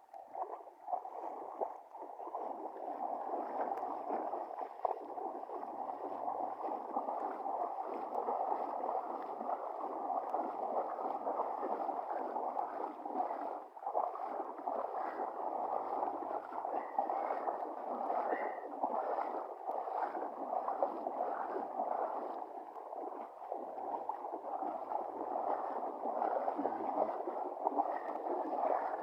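Floodwater rushing along after rain: a steady, even rush of flowing water.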